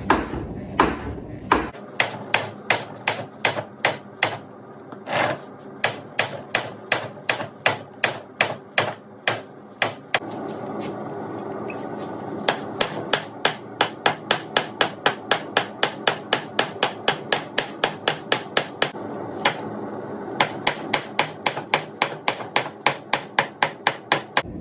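Hand hammer striking the heated end of a hardened tool-steel bar on an anvil, flattening it into a spade end, in a steady rhythm of about two to three blows a second. About ten seconds in the hammering pauses for a couple of seconds, leaving a steady rushing background, then resumes.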